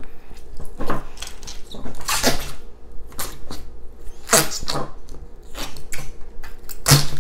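Green fart putty (noise putty) pushed down into its plastic jar with the fingers, pressing out a series of short fart noises, the loudest near the end.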